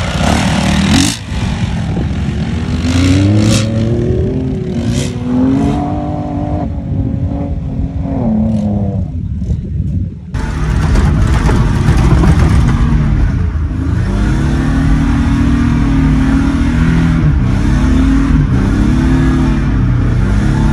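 A vehicle engine revving on sand dunes, its pitch rising and falling. About halfway it changes suddenly to a louder engine heard from inside a pickup's cab: the Nissan D21 Hardbody's V6 working hard in the sand, its revs rising and falling.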